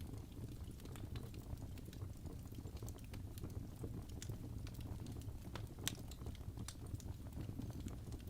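Wood fire burning in a fireplace: a steady low rumble of the flames with scattered, irregular sharp crackles, the loudest about six seconds in.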